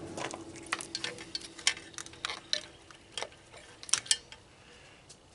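Scattered light clicks and clinks of small parts and tools being handled while taking an appliance apart, irregular for about four seconds and then dying away.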